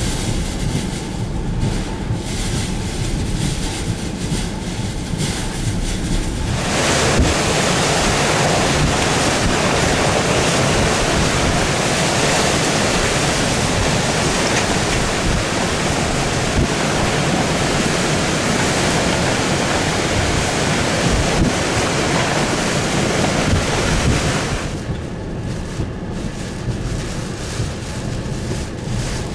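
Tropical-storm winds buffeting the microphone with a low rumble, rising about six seconds in to a loud, even rushing gust that lasts about eighteen seconds before easing back to the low buffeting near the end.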